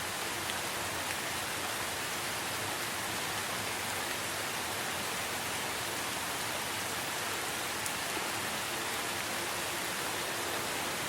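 Steady rain falling in a forest, an even hiss with a few faint drip ticks.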